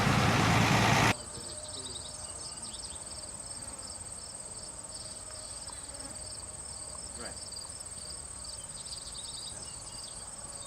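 Insects chirping: evenly repeated high chirps over a steady high buzz. For about the first second a loud, steady noise covers them, then it cuts off abruptly.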